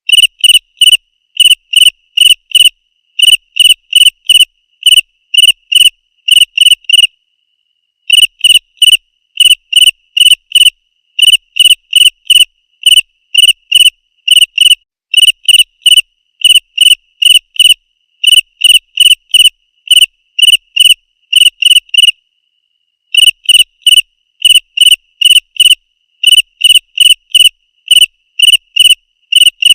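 Cricket-like chirping: loud, evenly spaced short high chirps, about two a second, stopping for about a second twice.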